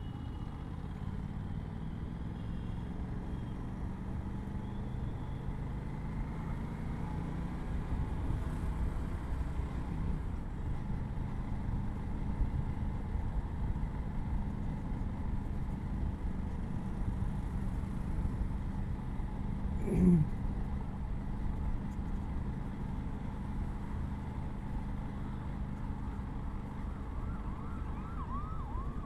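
Aprilia RS 457's parallel-twin engine running under way on its stock exhaust in city traffic. There is a short loud blip about twenty seconds in, and a wavering siren-like wail near the end.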